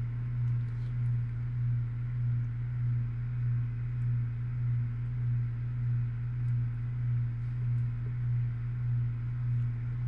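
Steady low hum that rises and falls in loudness a little more than once a second, with a few faint small clicks.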